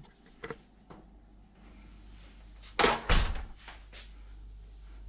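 Kitchen cupboard doors being handled: a few light clicks, then two loud knocks close together about three seconds in, followed by softer knocks.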